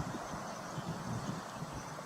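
Steady outdoor background noise with wind buffeting the microphone in soft, irregular low rumbles.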